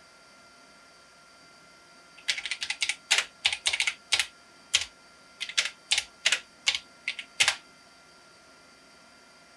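Typing on a computer keyboard: a run of about twenty uneven keystrokes lasting some five seconds, starting a couple of seconds in, over a steady background hiss.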